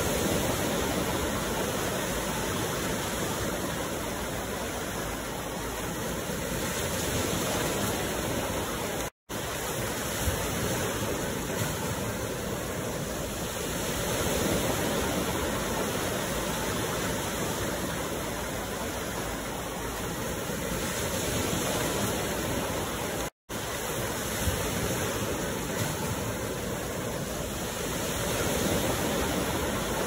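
Small ocean waves breaking and washing up a sandy beach: a steady hiss of surf that swells gently roughly every seven seconds. Twice the sound cuts out for an instant.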